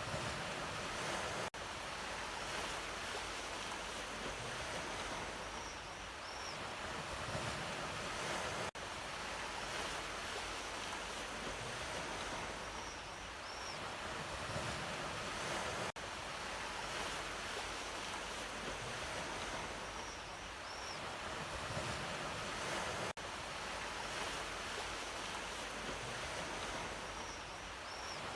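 Ocean surf washing in steadily, broken by a brief dropout about every seven seconds where the recording loops.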